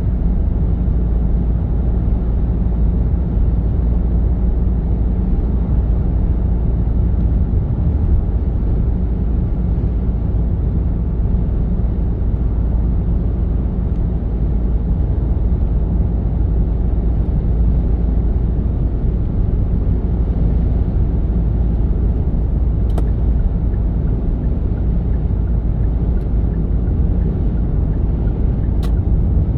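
Steady low rumble of a moving vehicle on the road: engine and tyre noise, even throughout, with two faint ticks in the last quarter.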